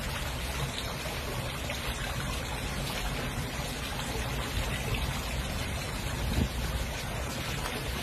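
Steady rushing noise with no distinct events, spread evenly from low to high pitch.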